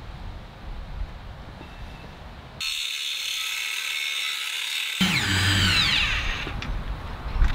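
Power drill running in two spells with background music; the second spell's pitch falls as it winds down.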